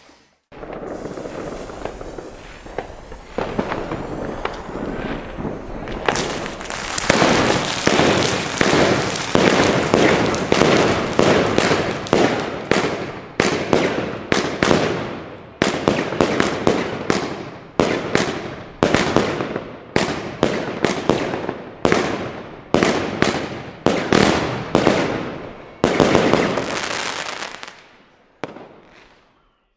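Röder Nishickeria 30 mm firework cake firing. A hiss comes first, then sharp launch reports in quick succession, about two a second, each trailing off, stopping shortly before the end.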